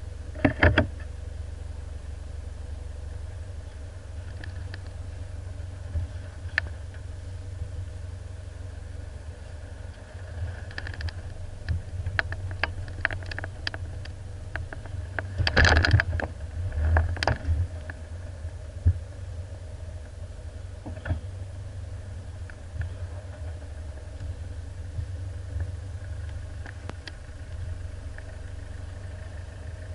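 Four-wheel drive's engine running low and steady as it crawls over a rutted dirt track, with scattered knocks and rattles from the vehicle jolting over the ruts, the loudest about halfway through.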